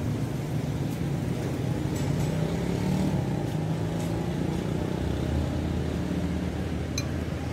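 Steady low rumble of passing road traffic and vehicle engines, its pitch dropping lower about five seconds in, with a couple of light clinks of a metal spoon against a bowl.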